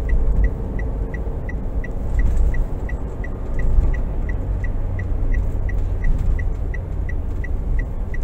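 Steady engine and road rumble inside a moving car's cabin, with the turn-signal indicator ticking evenly about three times a second.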